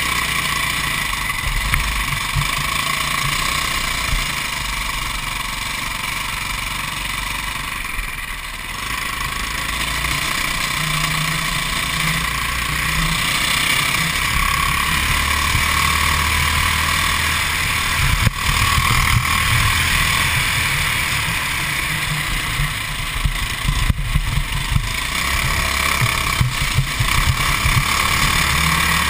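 Modified 196cc GX200-type single-cylinder four-stroke kart engine running, heard from a camera mounted on the kart itself. Its loudness dips briefly about eight seconds in.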